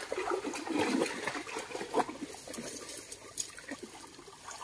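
Muddy shallow water sloshing and splashing irregularly as people wade and grope through it with their hands for fish, with sharper splashes about half a second to a second in and at about two seconds.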